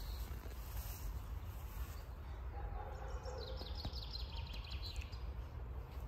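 Outdoor ambience of steady low wind rumble on the microphone, with a bird's rapid trill of high repeated notes about three to five seconds in.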